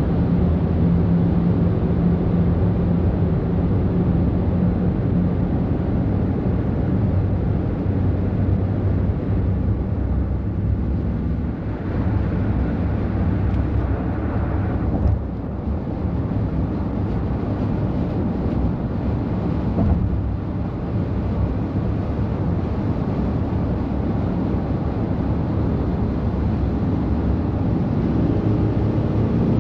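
Heavy trucks' diesel engines in road traffic, a steady low rumble.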